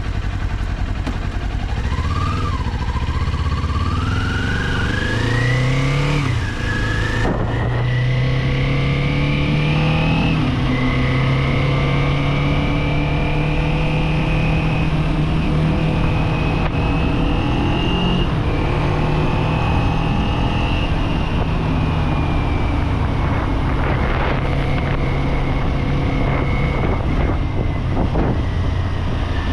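Kawasaki Z400 parallel-twin engine pulling hard with the revs climbing, an upshift about six seconds in and another rise after it. The bike then settles into a steady cruise, with the revs easing down slightly near the end.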